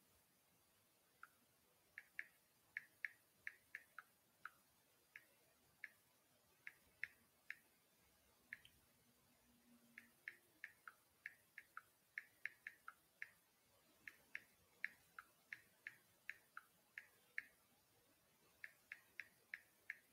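Typing: a run of faint, light clicks at an uneven pace of a few per second, pausing briefly a little before halfway and again near the end.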